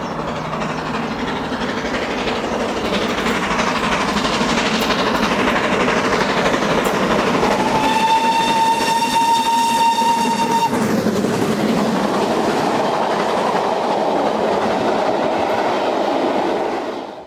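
Great Western steam locomotive running fast with a passenger train, its exhaust and wheels making a loud rushing noise as it approaches. About eight seconds in its whistle sounds one steady note for about three seconds. After that the carriages rattle past over the rail joints.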